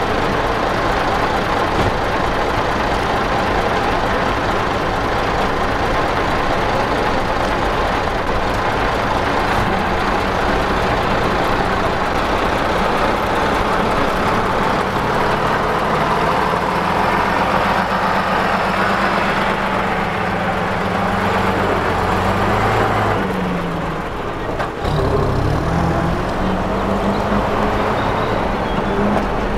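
Vintage half-cab double-decker bus's diesel engine running steadily, then pulling away with its pitch rising. About 24 seconds in the note drops briefly, a gear change, and then climbs again as the bus drives off.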